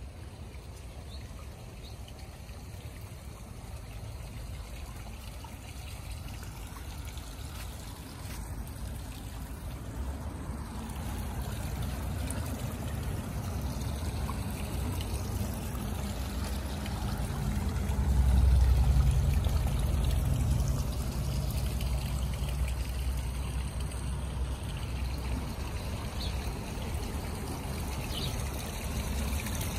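Water trickling in a garden pond, growing louder as it goes on, under a low rumble that swells about two-thirds of the way through.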